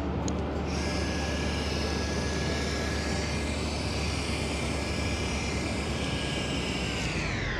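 Electric trolling motor running fast, a steady high whine that sets in about a second in. Near the end the pitch falls as the motor slows.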